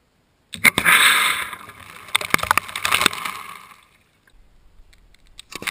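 Compressed-air water cannon firing: a sudden blast of rushing, splashing water about half a second in, fading away over about three seconds. More splashing starts near the end.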